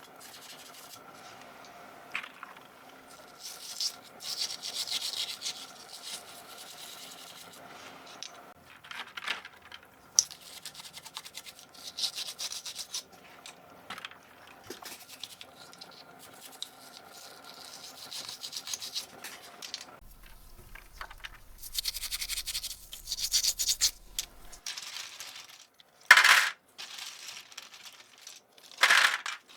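Plastic keyboard parts being scrubbed and handled: short bursts of rubbing and brushing, with light clinks of hard plastic. Two sharp clicks stand out near the end.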